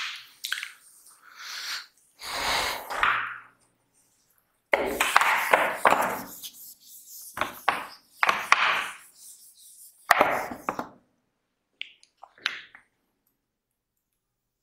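Whiteboard eraser wiping across a whiteboard in about half a dozen scrubbing strokes, each roughly a second long, with a few sharp taps in between.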